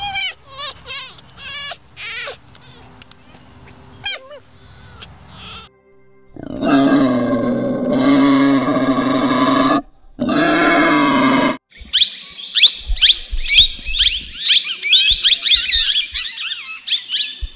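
A run of animal calls: quick, high yips from a fennec fox, then two long, loud calls from a wild boar, then rapid, high chirping from budgerigars.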